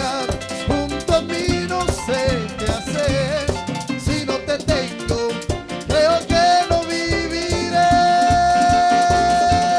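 Live band playing upbeat worship music with a steady drum beat and melody lines, ending on a long held note over the last two seconds or so.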